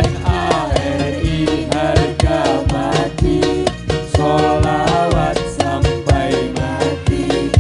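Hadroh ensemble performing a sholawat: a sung melody with wavering, gliding pitch over rebana frame drums striking a fast, steady rhythm, with a sustained low bass underneath.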